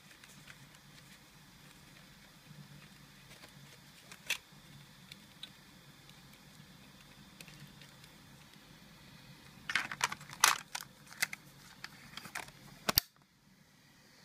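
Faint steady low hum, with one click about four seconds in and a burst of sharp clicks and knocks near the end, closing with a single sharp click.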